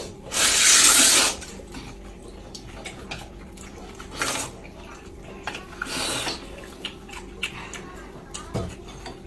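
A man slurping long noodles into his mouth: one loud slurp lasting about a second, starting about half a second in, then two shorter slurps in the middle. Small clicks of chopsticks and dishes come in between.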